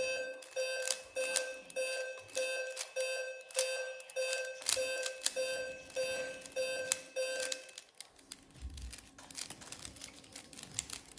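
Short electronic beeps from a laptop's mental-arithmetic drill, about two a second, one with each number flashed on screen. The beeps stop about eight seconds in, leaving only faint clicks and scratches.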